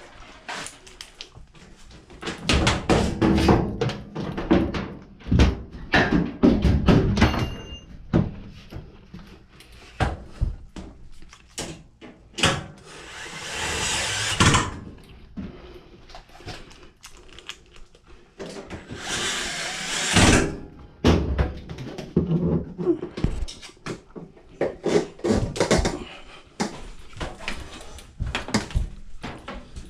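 Knocks, clunks and rattles of tools and metal parts being handled as a Samsung front-load washer is put back together, with two steady noisy stretches of about two seconds each near the middle.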